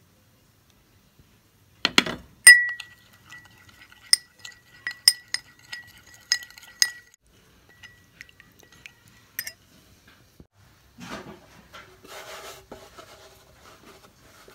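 Spoon clinking against a ribbed glass bowl while stirring a white flour paste. About a dozen sharp clinks, each leaving the bowl ringing, come in a run after a couple of seconds, with one more a little later. Soft rustling of hands on a wooden board near the end.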